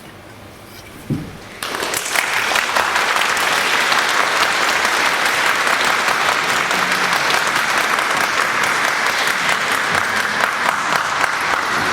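Concert audience applauding, breaking out about a second and a half in after a short quiet and a low thump, then clapping steadily.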